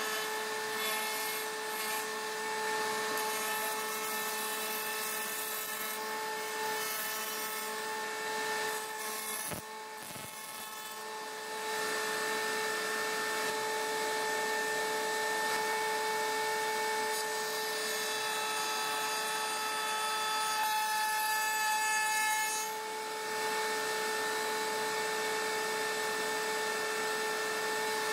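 Router mounted in a router table running with a steady whine while its bit trims the edge of a chipboard strip fed along the fence; the cutting noise eases off for a moment about ten seconds in, then returns as the board is fed again.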